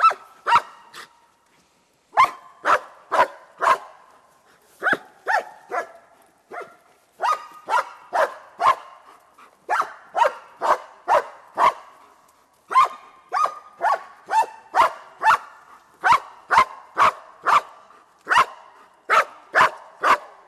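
German shepherd barking repeatedly at a helper in a blind, in quick volleys of three to six barks about two a second, with short pauses between volleys. This is the bark-and-hold of protection training.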